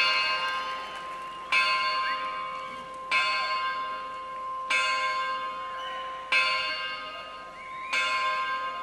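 A large hanging metal bell struck with a hammer, tolling six slow strokes about a second and a half apart. Each stroke rings on with a steady tone that fades until the next.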